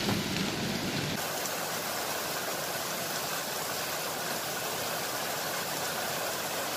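Heavy rain falling steadily on leaves and foliage, a constant even hiss.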